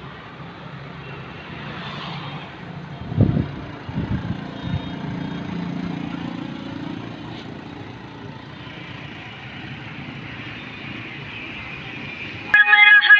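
Road traffic on a city street, a steady hum and rumble of passing vehicles, with a few low thumps about three to five seconds in. Music with singing cuts in abruptly just before the end.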